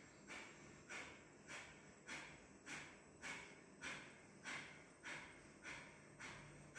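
Kapalbhati breathing: faint, sharp, forceful exhalations through the nose in a steady rhythm, a little under two a second, with quiet gaps between them.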